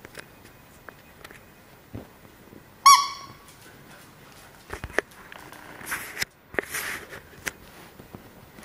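A dog gives one short, high-pitched yelp about three seconds in. After that come scattered clicks of dog claws on the tile floor and a few snuffling breaths close by.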